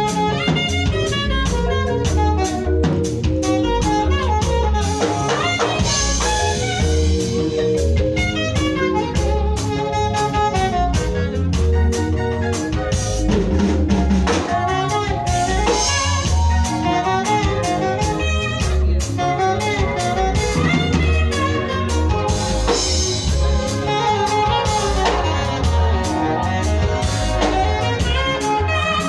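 A small band playing a rhythmic improvisation: a drum kit keeping a steady groove under pitched instruments playing moving melodic lines.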